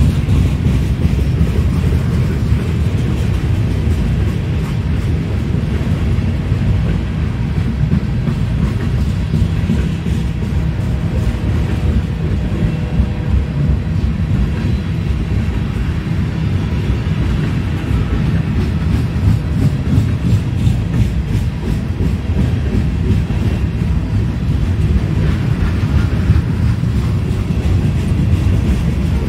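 Freight train boxcars rolling past on steel wheels: a loud, steady low rumble that carries on throughout.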